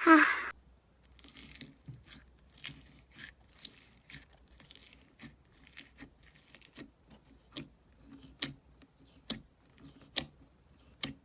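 Slime being played with by hand, making a run of crisp crackles and pops at irregular intervals, sharper and louder in the second half.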